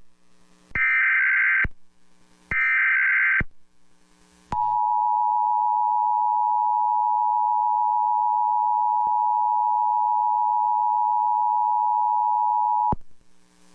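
Emergency Alert System header and attention signal: short bursts of SAME digital data tone, each just under a second long and coming in quick succession, then about four and a half seconds in the steady EAS two-tone attention signal (853 Hz and 960 Hz together), held for about eight seconds before it cuts off near the end. These signal the start of a new alert, here a tornado warning.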